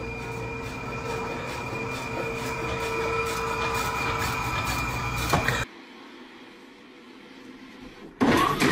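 Steady hum of commercial kitchen machinery with a few constant whining tones; it cuts off abruptly about five and a half seconds in. After a quieter stretch, a short loud burst comes near the end.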